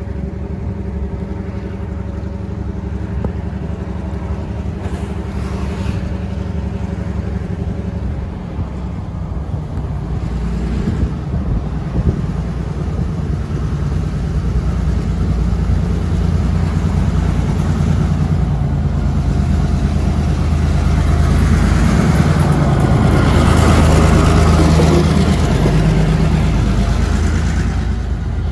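Diesel freight locomotive approaching and passing close by, its engine drone growing steadily louder and peaking about three-quarters of the way through. The rumble of the train's wheels on the rails follows as the loaded lumber flatcars roll past.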